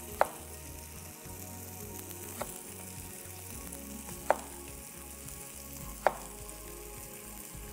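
Chicken frying in hot oil, a steady sizzle. Four short sharp clacks, about two seconds apart, cut through it.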